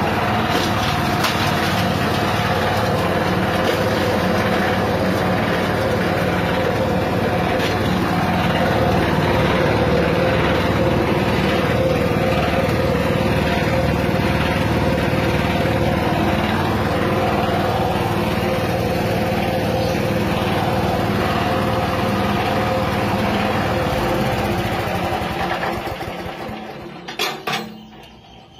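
Small engine driving a cassava grinding machine, running steadily. Over the last few seconds the sound fades away, with two short knocks just before it goes quiet.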